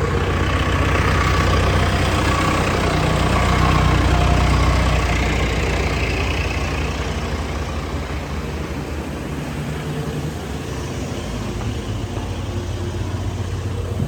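Farm machinery engine running steadily while soy is fed automatically into the feed mix, a little louder for the first few seconds and then easing slightly.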